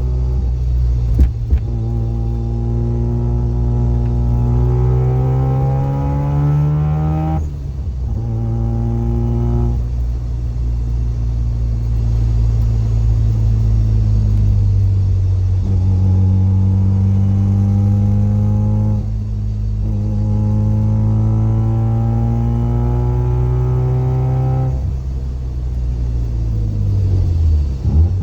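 Mazda FC RX-7's 13B rotary engine and loud exhaust pulling under acceleration. The pitch climbs and then drops at gear changes several times. Differential gear noise is carried into the cabin through solid delrin differential and subframe bushings.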